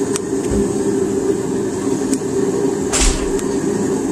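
Propane forge burner running with a steady roar, while a hot railroad spike knife blade is held in a bucket of quench oil. A single sharp knock about three seconds in.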